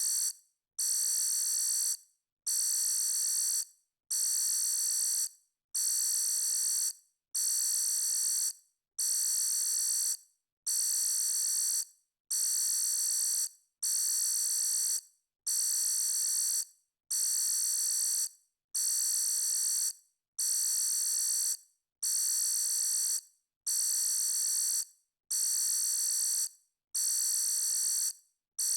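Electronic alarm sounding: a high-pitched beep repeating steadily, each beep about a second and a half long with a short gap between, roughly one every 1.7 seconds.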